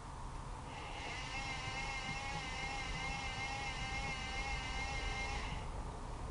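Servis M6500 washing machine's motor whining steadily through a drum tumble, starting about a second in and cutting off near the end. The motor has freshly fitted brushes, which the owner says make it sound horrible until a wash or two beds them in.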